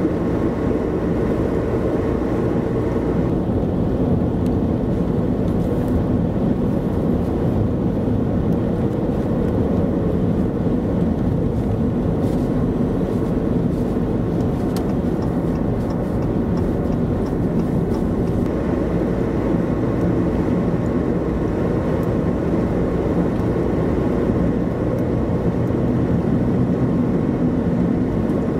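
Steady road and engine noise from a vehicle driving on a snow-covered highway, with tyres running on packed snow.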